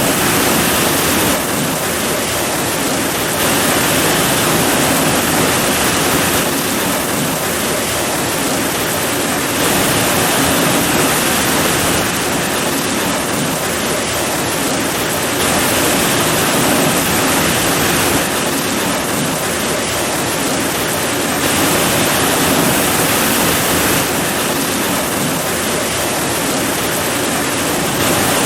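Heavy rain pouring steadily as a dense, even hiss, easing and swelling slightly every few seconds.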